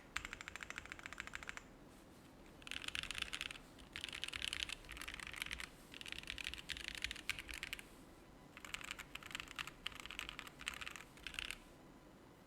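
Custom mechanical keyboard being typed on in fast bursts with short pauses: Cherry top creamsicle linear switches, lubed, in an FR4 plate gasket-mounted on gummy O-rings, under GMK keycaps with TX stabilizers. A faint low buzz sits underneath.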